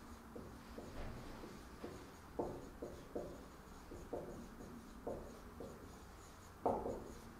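Handwriting on a board or writing surface: a string of short pen or chalk strokes at an irregular pace, one to two a second, with one louder stroke near the end.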